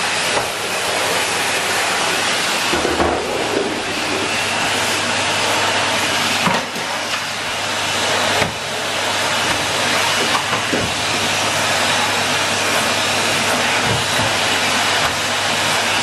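Henry canister vacuum cleaner running steadily: a constant rush of sucked air with a faint high whine. A couple of light knocks come about six and eight seconds in.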